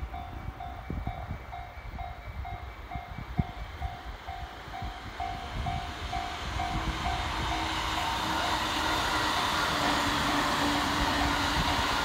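A Japanese level-crossing warning bell rings in even strokes about twice a second while a JR East E231-series electric train comes up to the crossing. From about halfway through, the train's running noise grows louder and covers the bell, with a steady low tone as the cars pass.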